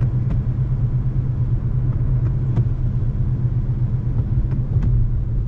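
Car on the move heard from inside the cabin: a steady low rumble of engine and road noise, with a few faint ticks.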